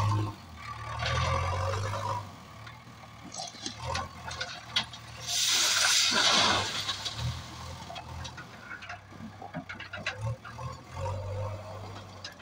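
JCB 3DX backhoe loader's diesel engine running, revving up near the start and again near the end. About five seconds in, a bucketload of railway ballast stone pours from its front bucket into a steel hopper wagon: a loud rushing clatter lasting about a second and a half.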